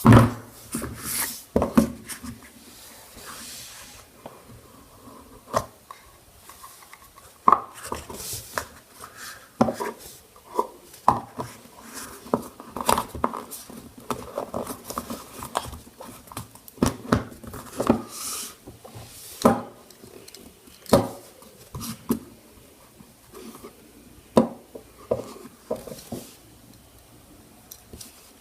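A plastic fidget cube being handled and played with: irregular clicks, taps and short rattles from its buttons, switch and other controls, with a sharp knock right at the start.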